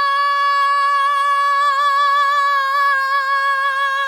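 A woman's unaccompanied singing voice holding one high note, steady at first, with a slight vibrato coming in over the second half.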